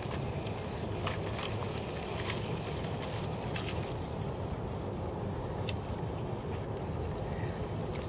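Moving ice sheet crackling and grinding against a steel sheet-pile dock wall: irregular sharp cracks and clicks over a low, steady rumble.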